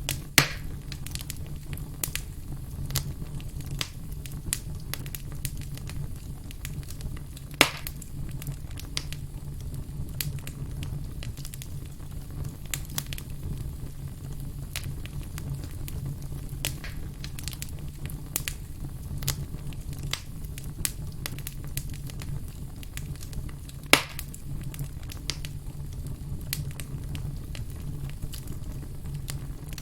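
Campfire crackling, with frequent small clicks and three louder pops, over a steady low hum.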